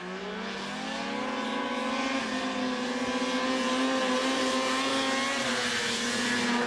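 Snowmobile engine held at full throttle, its pitch and loudness rising over the first couple of seconds and then holding high and steady.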